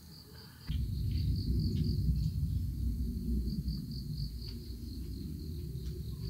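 Crickets chirping in a steady, evenly pulsing high trill. A low rumble sets in suddenly about a second in and is the loudest sound, with a few faint clicks over it.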